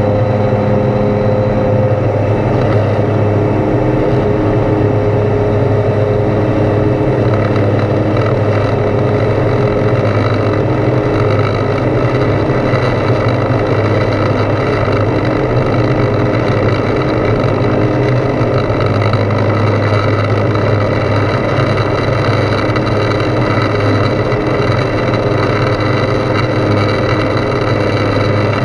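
Foxbat A22LS light aircraft's Rotax 912 engine and propeller running steadily in flight, a loud, even drone heard from inside the cockpit.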